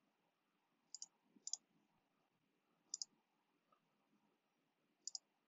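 Computer mouse clicking, faintly: four short, sharp clicks, some heard as quick double ticks, spaced one to two seconds apart.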